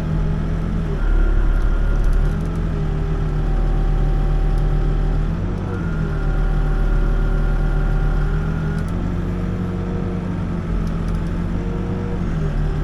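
Backhoe's diesel engine running steadily, its note dipping and rising in steps every few seconds as the hydraulics are worked while digging.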